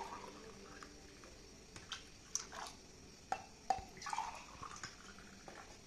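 Liquid dripping and splashing as a steel tumbler is dipped into and lifted out of a steel bowl of liquid: scattered faint drips and small splashes, several in quick succession between about two and five seconds in.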